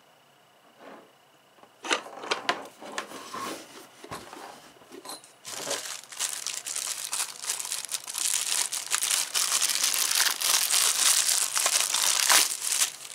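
Clear plastic wrapping being crinkled and pulled off a soldering-iron stand. It starts with a few scattered crackles a couple of seconds in, then turns to steady, dense crinkling for the second half.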